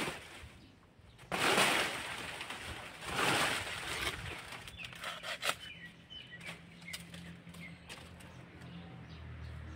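Rustling of dry banana leaves and the bunch's cover bag as a bunch of bananas is handled on the plant: two loud bursts of rustling in the first four seconds, then lighter scattered crackles.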